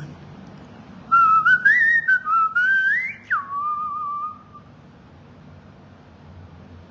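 Whistling: a wavering whistled line that climbs and wobbles in pitch for about two seconds, drops sharply, holds a lower note briefly and stops.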